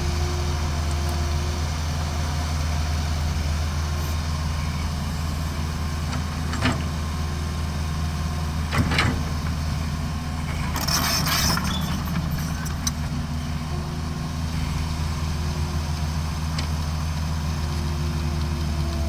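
Heavy diesel engine of an excavator loading a dump truck, running steadily with a low hum. Two sharp knocks come about a third and halfway in, and a brief hiss follows soon after.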